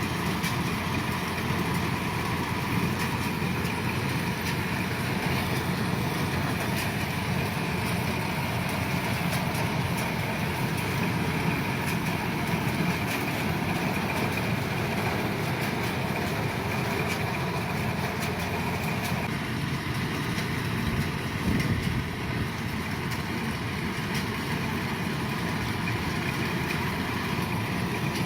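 Kubota DC-105 combine harvester's diesel engine and machinery running steadily, a continuous mechanical drone.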